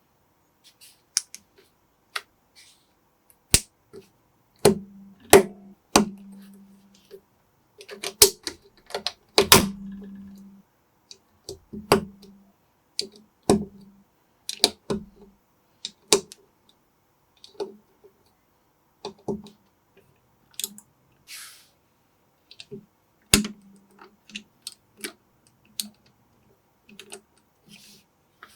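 Lego-compatible plastic building bricks being handled and pressed together: irregular sharp clicks and snaps, some with a short low knock as pieces are set down on a hard surface.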